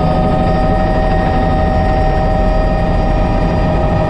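Bell 206 JetRanger helicopter heard from inside its cockpit: the Allison 250 turboshaft's steady whine over a loud, even low rumble of rotor and airflow. The main whine tone lifts slightly in pitch right at the start, then holds.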